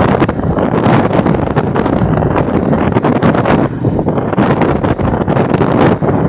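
Motorcycle riding along a dirt road: heavy wind buffeting on the microphone over the bike's engine and tyres on the loose surface, a steady rush with no letup.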